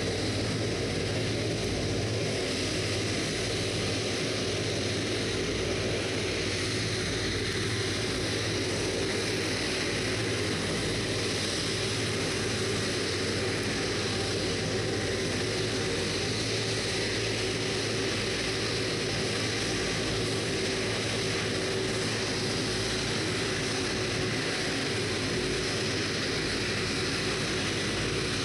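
Airbus A330-243 MRTT's Rolls-Royce Trent 700 turbofan engines running at taxi power: a steady jet whine over a low rumble.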